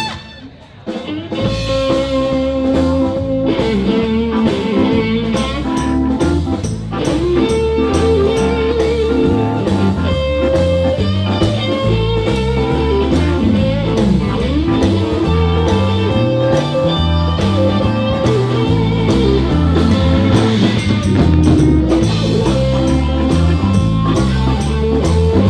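Live blues band playing electric guitar, keyboard and drums. After a brief drop in level about half a second in, the band comes back in at about one second and plays on steadily with a walking low bass line.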